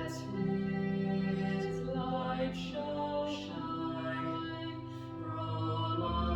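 A hymn sung with organ accompaniment: voices on long held notes over sustained organ chords.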